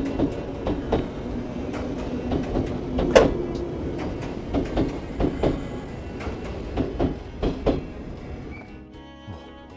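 Chōshi Electric Railway train running, heard from inside the car: a steady rumble with frequent irregular knocks and clatters, the sharpest about three seconds in. It dies down near the end.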